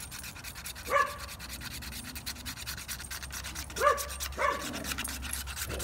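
Rapid, repeated scraping strokes of a handheld sharpener drawn along the edge of a plastic CD, shaving off plastic. A dog gives three short barks, about a second in and twice near the end.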